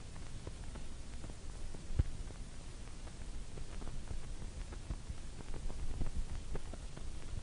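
Steady background hiss and low rumble with scattered faint clicks and knocks, one louder thump about two seconds in.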